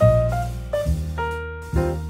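Background music: jazzy piano with a bass line and light drums, with a new chord or bass note roughly every second.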